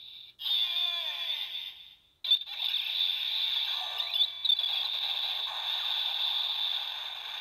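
Bandai DX Build Driver toy belt, with the Dog and Mic Full Bottles inserted, playing its standard Vortex Finish finisher sound effects through its small speaker. The electronic effects and music come out tinny, with falling pitch sweeps about a second in and short breaks about a third of a second and two seconds in.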